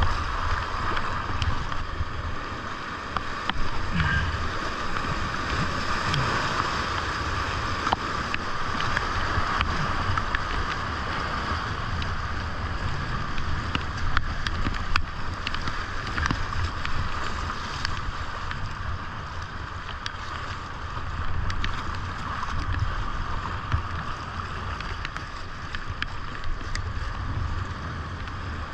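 Rushing whitewater of a creek rapid at high flow (about 1,600 cfs) heard from a kayak, with splashing and paddle strokes in the water over a low rumble.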